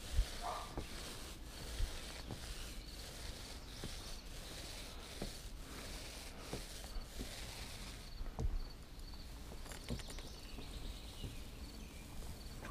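Faint outdoor ambience: a steady hiss with an insect chirping in short high pulses that repeat in small groups, and a few soft knocks scattered through.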